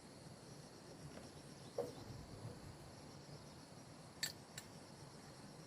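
Faint, steady background of insects chirping, likely crickets, with two sharp clicks about four seconds in.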